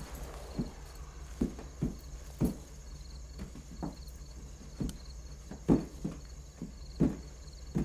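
Muffled, irregular thumps from a man inside a car's closed trunk banging against the lid, about one a second, some louder than others: a sign he is still alive.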